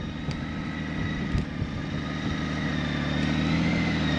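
Motorcycle engine running steadily at a low, slow-riding speed, held in check with clutch and brake; it grows a little louder near the end.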